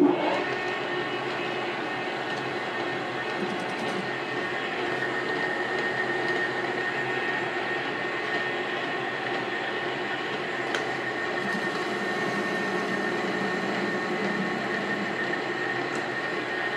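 A power tool running steadily under load, cutting steel studs down to height.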